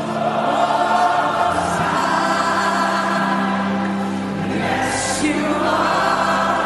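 Gospel worship music: many voices singing together over steady held chords, with a brief hissing swell about five seconds in.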